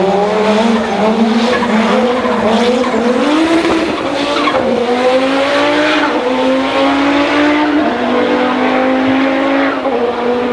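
Audi 200 quattro race car's turbocharged five-cylinder engine running hard on track, its note climbing slowly in pitch with a few short dips as the car pulls away.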